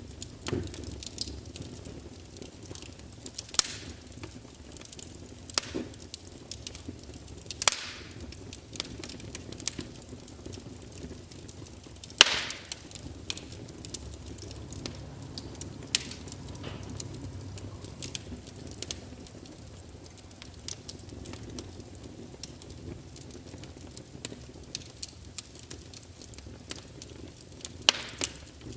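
Wood log fire burning: irregular sharp crackles and pops over a low, steady rush of flame. The loudest pop comes about twelve seconds in.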